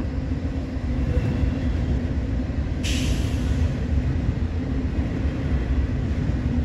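Double-stack container freight train rolling past at steady speed: a continuous low rumble of wheels on rail. A short hiss of air comes about three seconds in.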